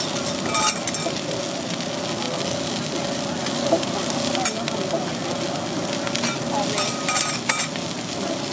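Chunks of meat sizzling steadily on a hot steel teppanyaki griddle, with a few sharp clicks and scrapes of a metal spatula on the plate.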